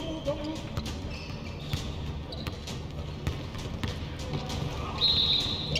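Basketball being dribbled and bouncing on a hardwood gym floor during a game, as irregular knocks. A short high-pitched tone comes near the end.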